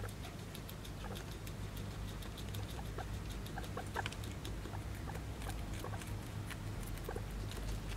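Guinea pig chewing a piece of cucumber: a quick, irregular run of small crunches and clicks. A steady low hum runs underneath.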